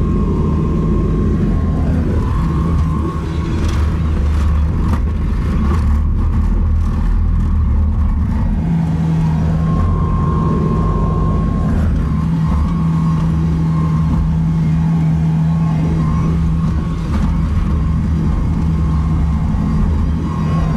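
Bobcat T770 compact track loader's diesel engine running steadily under load while the machine pushes snow, heard from inside the cab, with a low, even hum and a thin steady whine above it.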